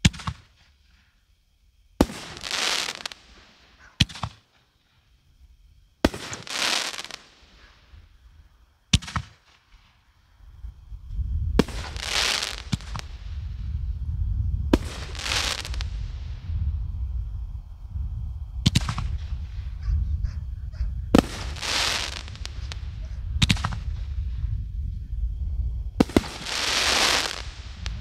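A 500-gram, eight-shot fireworks cake with 2-inch tubes firing its ring-effect shells. Sharp booms come every two to three seconds, most followed by about a second of hissing.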